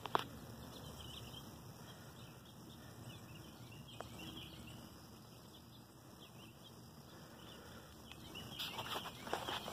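Birds chirping faintly over outdoor background noise. There is a sharp click right at the start, and a few seconds of rustling and brushing near the end.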